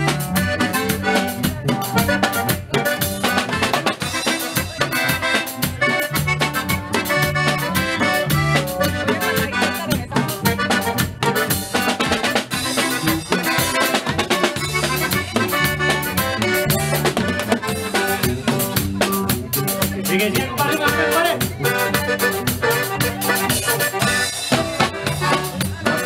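Norteño-style band playing a dance tune: accordion over guitar, bass and drums, with a steady beat.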